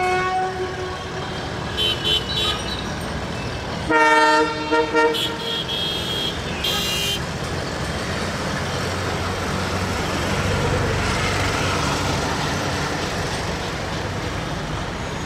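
Diesel locomotive horn sounding in several short blasts, the loudest about four seconds in, with shrill high-pitched tones between them. After that the locomotive's diesel engine and the rolling train give a steady rumble as it pulls out along the curve.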